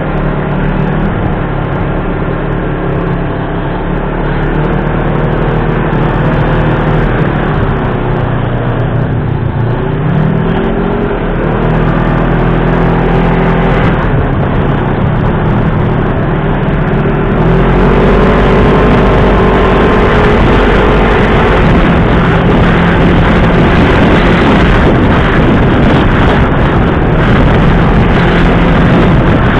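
Off-road dune buggy engine running under load over sand, its revs rising and falling as it accelerates. The pitch climbs about ten seconds in and again a little past halfway.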